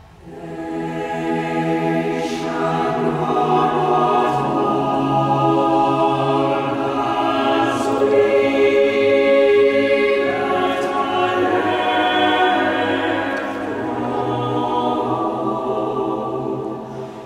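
Choir of boys and men singing sustained phrases, the voices ringing in a cathedral's long echo. The singing swells in from quiet in the first second.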